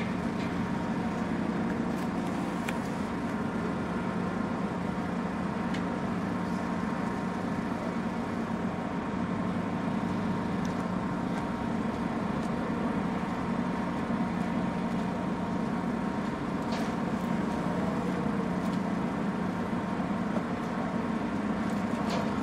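Steady mechanical hum, like a running engine or machinery, with a low drone, a faint thin high tone and a few light ticks. It holds level and unchanged throughout.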